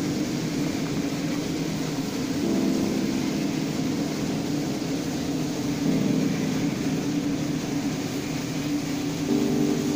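Background music: sustained low chords that change about every three and a half seconds, over a steady hiss.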